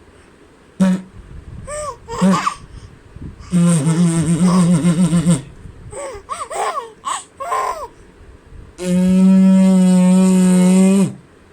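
Playful vocal sounds from a baby and an adult: short squeals and laughter with rising and falling pitch, then a long held low voiced sound near the end.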